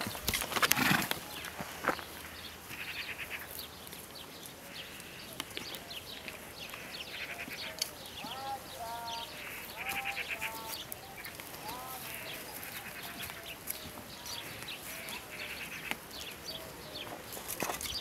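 Short pulsed bleating calls from livestock repeat in the background, with a few small chirping calls, over close rustling as a donkey foal nuzzles the camera; the rustling is loudest about a second in.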